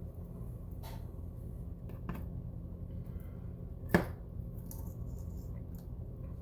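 Small clicks and taps of hand tools being handled on a workbench, the loudest a single sharp click about four seconds in, over a steady low electrical hum.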